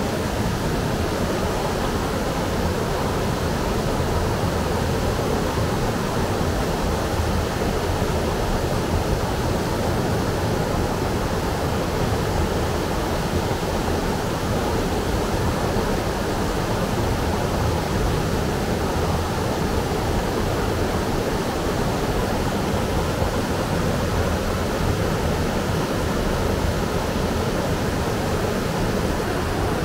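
Mountain stream rushing over a boulder cascade into a pool: a steady, unbroken whitewater rush.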